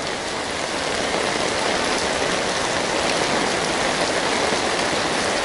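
Steady rain drumming on an umbrella held overhead and falling on the wet street: an even, unbroken hiss.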